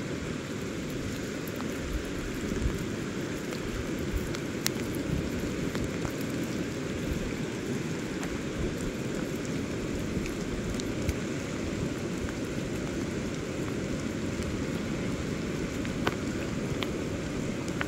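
Steady rushing noise of the South Fork American River in major flood, running at about 26,000 cfs, with rain falling. A few faint ticks sound through it.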